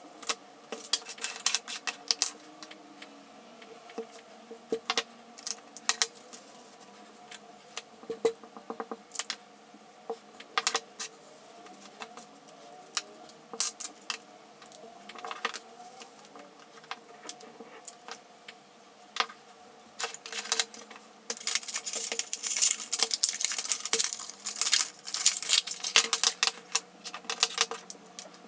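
Scattered light plastic clicks and taps as small Ranger Archival Ink mini pad cases are opened and shut and a clear acrylic stamp block is pressed onto the pads and cardstock on a wooden table. About 21 seconds in, the clicks come thick and fast for several seconds.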